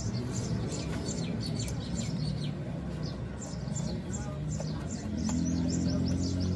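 Small birds chirping over and over, quick high calls, over a low steady hum.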